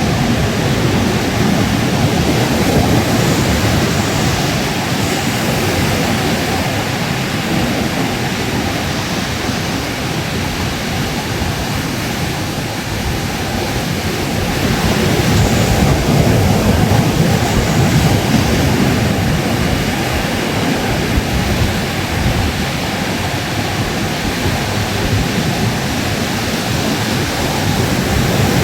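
Ocean surf washing on a beach: a continuous rushing of breaking waves that swells louder about halfway through and again near the end.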